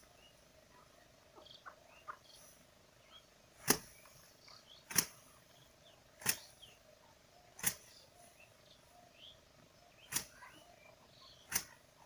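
Sheaves of rice paddy beaten by hand against a stone slab to knock the grain loose: six sharp thwacks, one every second or so, with a longer pause between the fourth and fifth. A faint steady hum runs underneath.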